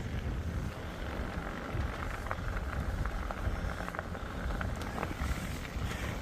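Steady wind rumbling on the microphone while cycling, with a few faint clicks in the middle.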